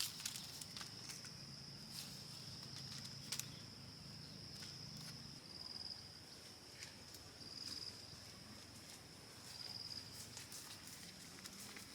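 Insects trilling steadily at a high pitch, swelling briefly a few times, with scattered faint clicks.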